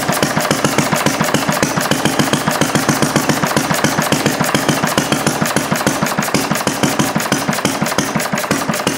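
Briggs & Stratton single-cylinder engine with a clear acrylic head running very slowly, about 250 RPM against a 3,200 RPM design speed, as an even, rapid beat. It misses every once in a while, which comes from running it so far below its design speed.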